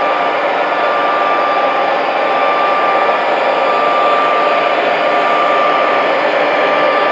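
Three-unit lash-up of O scale three-rail MTH model diesel locomotives running past, a steady rumble of their simulated diesel engine sound mixed with the wheels and motors on the track, with a steady high hum running through it.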